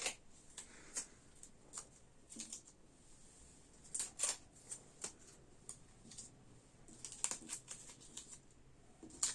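Light handling noises: scattered clicks, taps and rustles, some in quick little clusters, over faint room hiss.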